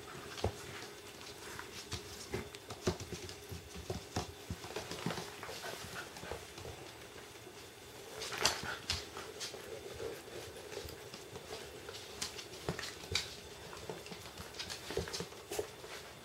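Puppies and a dog playing with a rope toy on a wooden floor: scattered clicks and taps of claws and the toy, with a louder sharp sound about eight seconds in.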